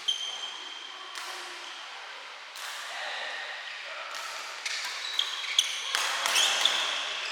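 Badminton rally: sharp racket strikes on the shuttlecock, a few at first and then in quicker succession late on, with short high squeaks between them, over a steady hiss of rain.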